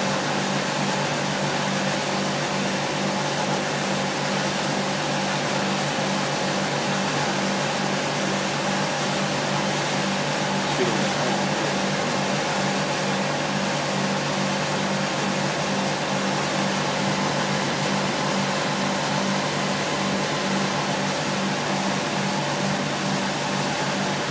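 Large CNC vertical boring mill running: a steady mechanical hum with a low tone that pulses evenly, over an even hiss.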